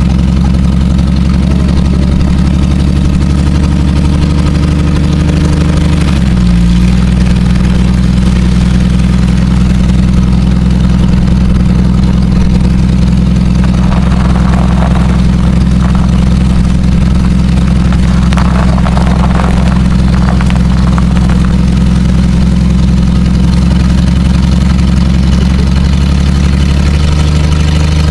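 Jeep engine running steadily while towing at low speed: a loud, low, even drone. Its pitch changes about six seconds in and again near the end.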